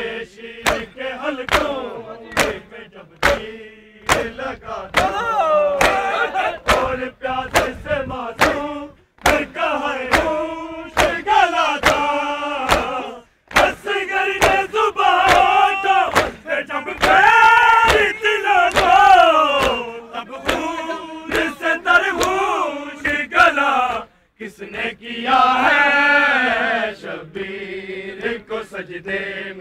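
Men chanting a noha (Urdu mourning lament) in unison over a steady beat of hands slapping on bare chests (matam). The chanting breaks off briefly twice while the slaps keep time.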